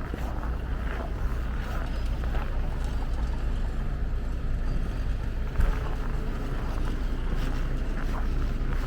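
Wind rumbling against the microphone, with faint crunching footsteps in dry, frozen snow and one low bump about five and a half seconds in.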